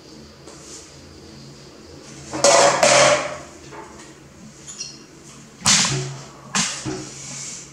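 Knocks and clatter as baby macaques jostle on their chairs and handle plastic feeding bottles at a table: a loud pair of knocks about two and a half seconds in, another near six seconds, and a smaller one just after, over a faint steady hum.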